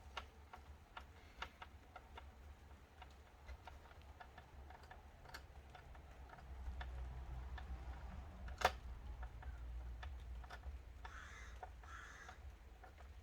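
Scattered light clicks and ticks of small screws and plastic laptop parts being handled, with one sharper click about two-thirds of the way through. A low steady hum runs underneath.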